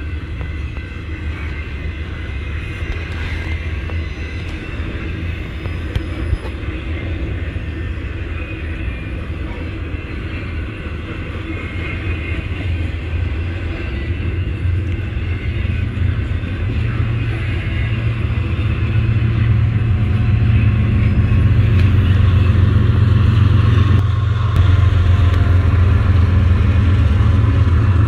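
An intermodal freight train's trailer-laden flatcars roll past with a steady rumble of wheels on rail. Over the second half a low diesel engine drone builds and grows louder as two BNSF diesel-electric locomotives draw near.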